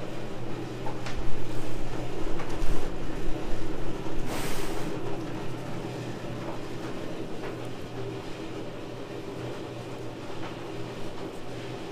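An engine running steadily at idle, a low, even drone, with a brief hiss about four seconds in.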